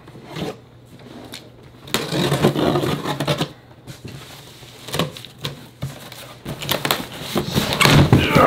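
Packing tape being slit and scraped along a large cardboard box, then the box's cardboard flaps being pulled open, with sharp knocks and cracks of cardboard near the end.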